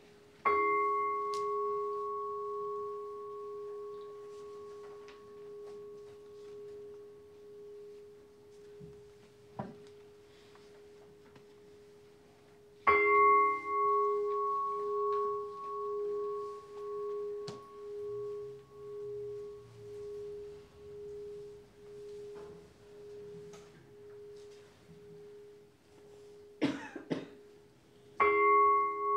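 Large bowl bell struck three times, the strokes about twelve and fifteen seconds apart. Each stroke rings out in a single clear tone that pulses as it slowly fades. A brief cough comes just before the third stroke.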